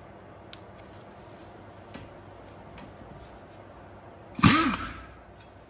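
A few faint clicks, then about four seconds in a short, loud blip of a pneumatic impact wrench run free: a burst of air hiss with a motor tone that rises and falls within about half a second.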